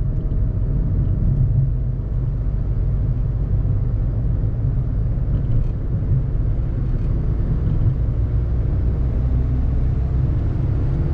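Steady low rumble of a Volkswagen Fox with its 1.2-litre three-cylinder petrol engine driving, heard from inside the cabin: road and engine noise with a faint engine hum over it.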